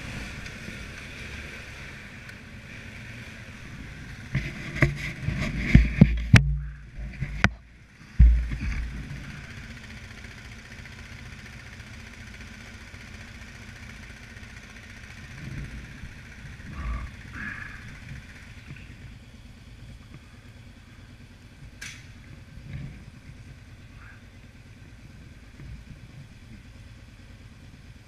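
ATV engines idling steadily. A flurry of loud knocks and bumps comes about four to eight seconds in, with a few softer bumps later.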